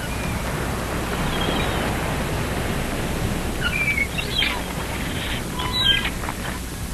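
A steady outdoor hiss of ambience with a few short, high bird chirps in the second half.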